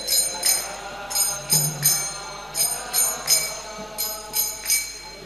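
Instrumental interlude of a devotional kirtan: small brass hand cymbals (kartals) struck in a repeating rhythm of about three clashes a second, ringing over a sustained held chord.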